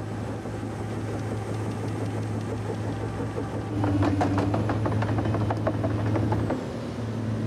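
Engine of a 100-tonne tracked peat-loading machine humming steadily. From about four seconds in, its two-metre-wide crawler tracks clank in a quick run of metallic clicks as it moves, which stops shortly after six seconds.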